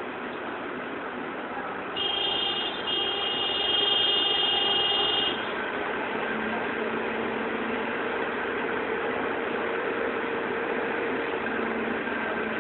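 Steady running of an idling vehicle engine with a faint hum. About two seconds in, a high-pitched squeal sounds for about three seconds, briefly breaking once, then stops.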